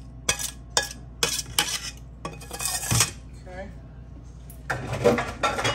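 A metal spoon clinking and scraping against a mixing bowl while sautéed mushrooms and vegetables are spooned in and stirred, a run of sharp clinks in the first three seconds.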